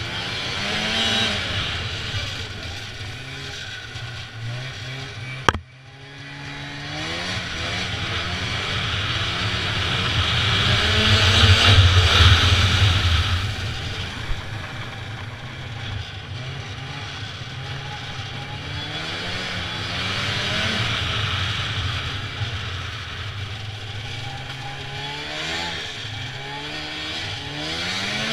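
Snowmobile engine running and revving up and down as it rides, with a sharp knock about five seconds in and a sudden brief drop in engine sound after it. The engine then climbs in a long rev to its loudest a few seconds later.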